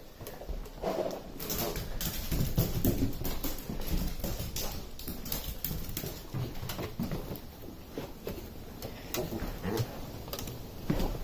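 Footsteps and a dog's claws clicking irregularly on a hard tiled floor, then on the stairs outside.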